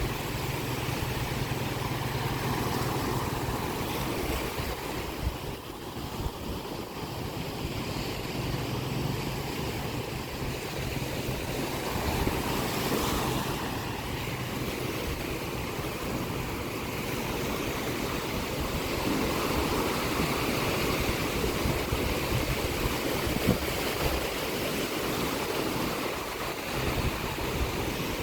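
Sea waves breaking and washing up the shore, with wind. A low steady hum sits under it for the first few seconds and again briefly about ten seconds in.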